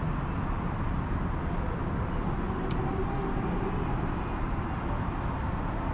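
Steady low rumble of downtown city noise, mostly distant traffic, with a faint tick about two and a half seconds in.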